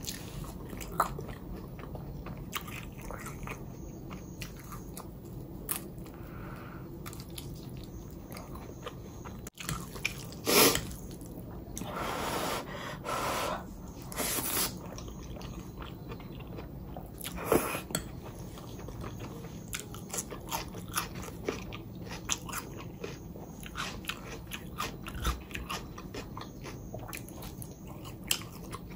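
Close-miked eating: steady chewing and biting with crunchy bites, and a few louder, sharper bites and mouth noises between about ten and eighteen seconds in.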